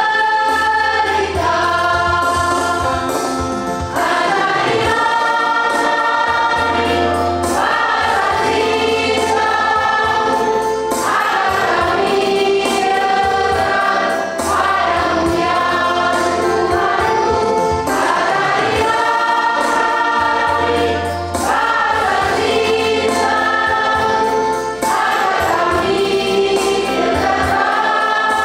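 Church choir singing a hymn in several voices, in long sung phrases over a steady low bass accompaniment.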